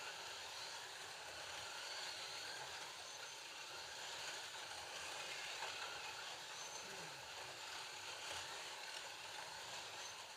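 Scalextric slot cars running around the track, their small electric motors making a steady high whir and hiss.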